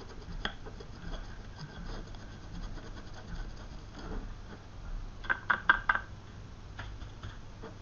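Wide flat paintbrush dry-brushing paint onto a textured resin base: a faint scratchy rubbing of the bristles, with a quick run of sharp ticks a little over five seconds in.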